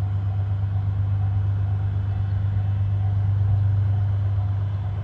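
DF200 diesel-electric locomotive's engine running with a steady low drone as the freight train approaches.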